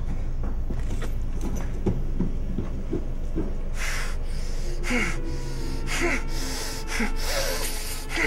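Short, hard breaths and snorts, about one a second, with muffled falling moans, from a man gagged with duct tape over his mouth, starting about halfway through over a steady low drone.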